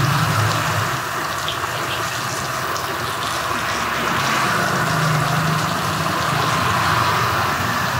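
Steady sizzling hiss from a hot wok as wet leafy greens and shredded cabbage hit the oil and are turned with a metal spatula.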